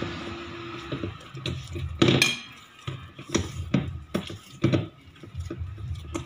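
Hand patting and pressing a ball of oiled dough around a stainless steel bowl: a string of irregular knocks and bumps against the metal, the loudest about two seconds in with a brief metallic ring.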